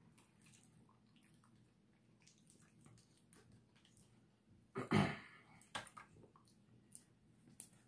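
Faint clicks and crackles of a cooked lobster tail's shell being cracked and peeled apart by hand, with a brief murmur of a voice about five seconds in.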